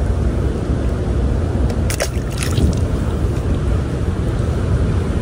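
Steady rushing of water pouring over a spillway, heaviest in the low end, with a couple of short clicks about two seconds in.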